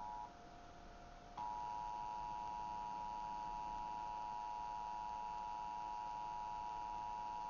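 Emergency Alert System attention signal: a steady two-tone alarm tone. It cuts out about a quarter second in and comes back about a second later.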